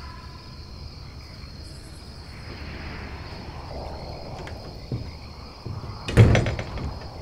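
Steady chirring of night insects, with a small knock about five seconds in and then a loud wooden bang and clatter about six seconds in from the cabin's door.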